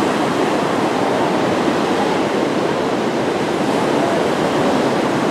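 Ocean surf: small waves breaking and washing up the beach in a steady, unbroken rushing noise.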